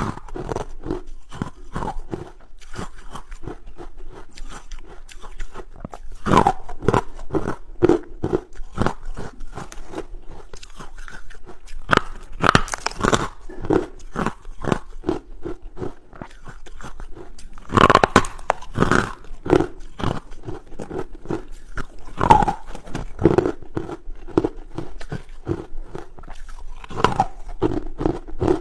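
Hard carbonated ice being bitten and chewed: a steady run of crackling crunches, with a louder, sharper bite every few seconds.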